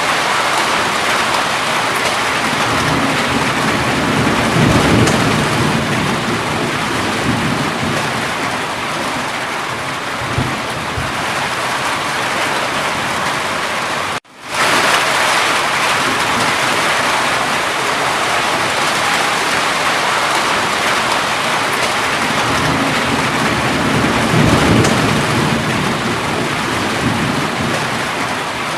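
Steady heavy rainfall with low rolling thunder, which swells twice: a few seconds in and again near the end. Halfway through, the sound cuts out for a split second and comes straight back.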